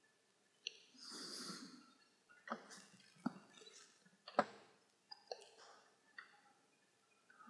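Faint, scattered clicks of a computer mouse and keyboard, about six of them spaced across several seconds, with a soft breath about a second in.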